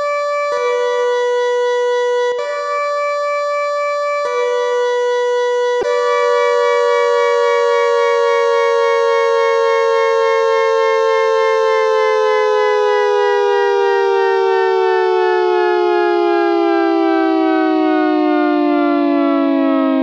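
Synthesized tornado-siren sound: a steady two-note siren chord that cuts out and back in sharply a few times, then holds and slowly winds down in pitch, falling faster in the second half like a siren coasting to a stop.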